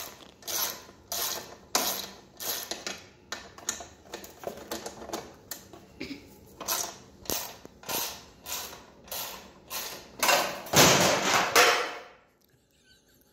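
Hand socket ratchet clicking in repeated back-and-forth strokes while loosening a bolt on the engine. About ten and a half seconds in there is a louder, denser stretch, then the clicking stops suddenly.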